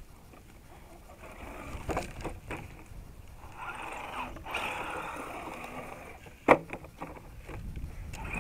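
Electric motor and gears of a radio-controlled scale crawler truck whining as it climbs past close by, mixed with wind on the microphone and rustling grass. A sharp knock about six and a half seconds in.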